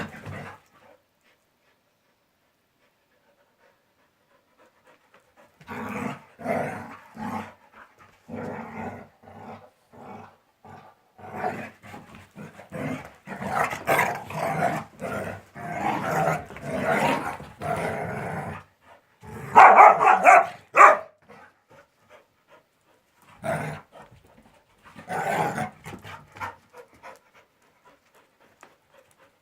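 A shar-pei and a laika-type dog play-fighting, growling and panting in irregular bursts. The first few seconds are near silent, and the loudest burst comes about twenty seconds in.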